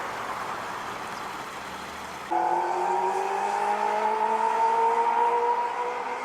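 A stream waterfall cascading over rocks, a steady rush; a little over two seconds in it cuts abruptly to a car's engine running, its hum rising slowly in pitch as the car accelerates.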